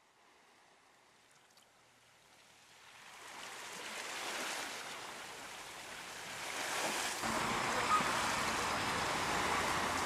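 Ocean surf, a steady wash of noise that starts faint and swells up over the first several seconds, then holds.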